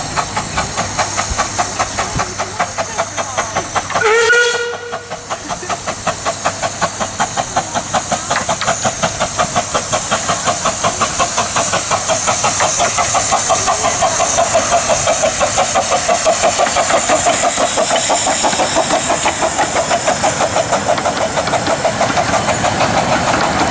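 A 15-inch-gauge steam locomotive working a train as it approaches and passes: a steady rhythm of exhaust beats over steam hiss, growing louder as it comes close, with one short whistle blast about four seconds in.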